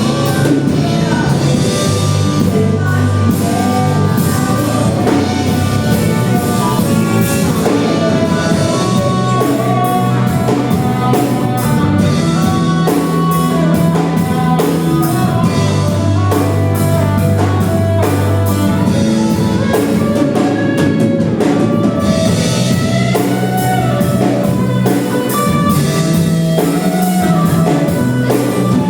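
Worship band music with drum kit and guitar over sustained bass and keyboard-like notes, played at a steady level.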